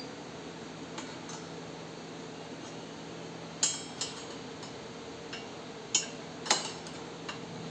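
Four sharp metallic clinks in the second half as the steel shaft and locking sleeves of a double-box seed drill are worked by hand, over a steady low hum.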